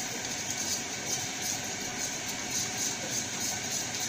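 Paint being stirred in a small metal can, a scrape repeating about twice a second, over a steady mechanical hum.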